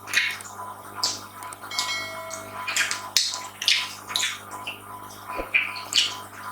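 Close-miked eating sounds: wet chewing and lip smacks about every half second, with a short ringing clink about two seconds in, over a faint steady hum.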